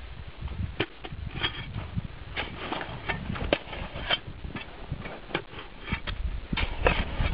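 Shovel scraping and cutting into snow in short, irregular strokes, several a second.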